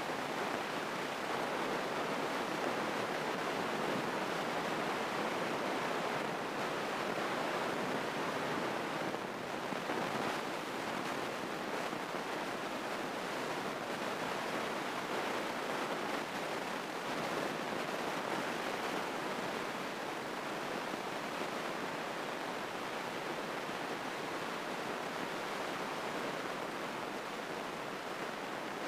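Steady, even rushing noise in a light airplane's cockpit, typical of the engine running while the plane sits on the ramp, with no distinct engine note.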